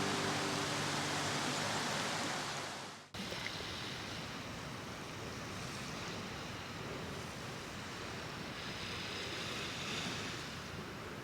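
Waves from Lake Superior washing onto the shore, a steady rush of water that drops out briefly about three seconds in and then resumes.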